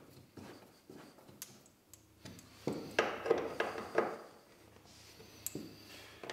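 Small clicks and taps of screws and a screwdriver being handled by hand, with a louder stretch of knocking and rustling in the middle.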